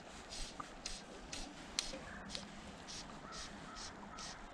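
Fly line being stripped in by hand through the rod guides during a streamer retrieve: a run of short rasping zips, about two a second with a brief pause midway, over steady stream flow.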